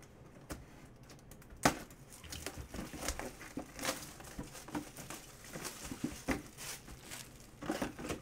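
Cardboard Leaf Autographed Mini-Helmet box being handled and opened: scattered rustling, tearing and light taps of cardboard and packaging, with one sharp knock about one and a half seconds in.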